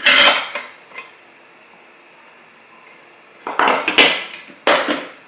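Primus Eta Pot, a 1-litre aluminium camping pot, clanking onto the metal pot support and windscreen of a Primus Eta Power EF stove right at the start. A cluster of metal clanks and rattles follows from about three and a half seconds in as it is lifted off.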